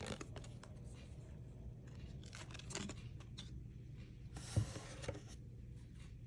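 Cardboard trading cards being handled: faint sliding, scraping and small clicks, with a short rustle and a sharper click about four and a half seconds in.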